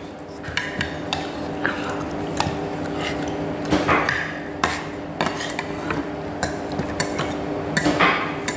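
Wooden chopsticks clicking and scraping irregularly against a ceramic bowl of noodles, with chewing. A faint steady hum runs underneath.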